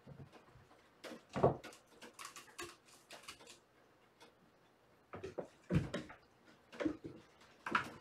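Kittens running and pouncing, their paws thumping and pattering on a hardwood floor in scattered clusters. The loudest thumps come about a second and a half in, near six seconds and near the end.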